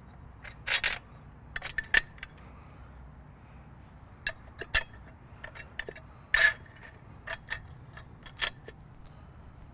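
Steel bolts, lock washers and nuts clinking against the squat rack's steel brackets as they are fitted by hand: scattered sharp metallic clicks, the loudest a little past halfway.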